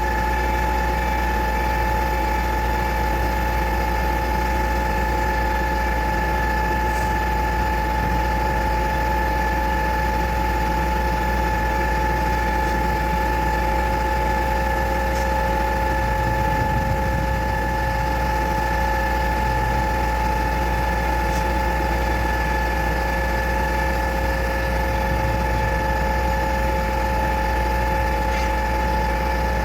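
Zoomlion 38M concrete pump truck running steadily, a constant low engine rumble with a steady high whine over it.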